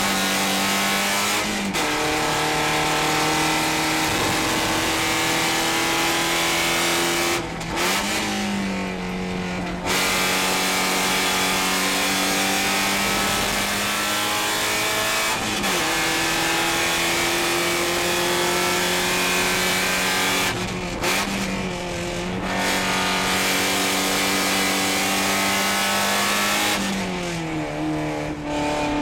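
Porsche 944 Spec race car's four-cylinder engine heard from inside the cockpit at racing speed. Its pitch climbs steadily through each gear and drops sharply at each gear change. A few times the throttle lifts briefly and the pitch falls before it climbs again.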